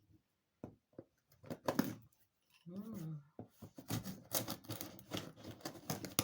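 Cardboard box and packaging being handled and opened by hand: scattered clicks and scrapes, growing into steady rustling and scraping over the second half.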